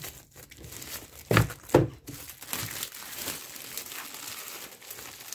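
Clear plastic packaging crinkling and tearing as hands pull it off a book, with two louder crackles close together about a second and a half in.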